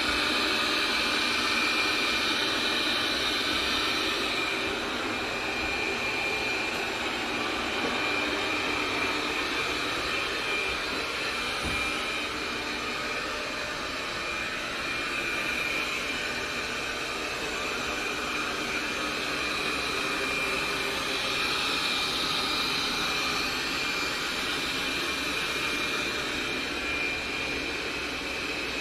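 iNic i9 robot vacuum cleaner running: a steady whir of its suction fan with a thin high whine held throughout.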